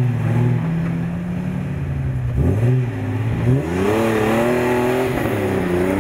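Off-road 4WD engine running under load, then revving up: its pitch rises sharply about three and a half seconds in and stays high, wavering.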